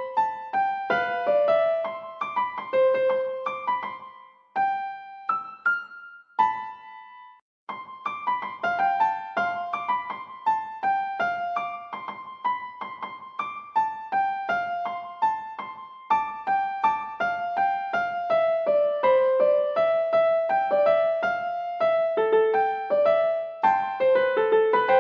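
Background music: a light electric-piano tune of quick, bright notes, with a short pause about six seconds in before the tune picks up again.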